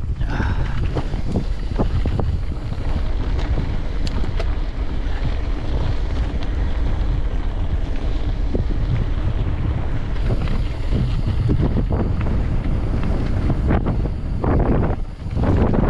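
Wind buffeting the microphone during a mountain-bike ride, a steady low rumble with scattered clicks and knocks from the bike on rough trail.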